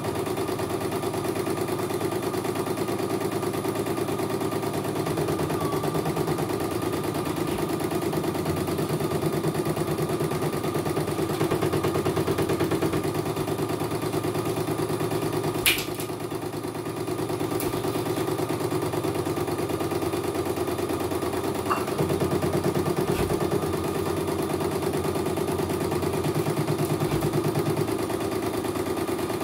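CNY computerised embroidery machine stitching at a steady rapid pace, the needle bar chattering evenly as the hoop carriage shifts the fabric. A single sharp click about halfway through.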